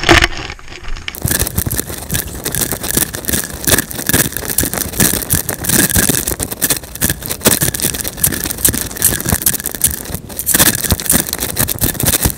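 Clothing fabric rubbing and brushing against the camera's microphone as the wearer moves: a dense, irregular rustling and crackling, with a sharp knock at the very start and a short lull about ten seconds in.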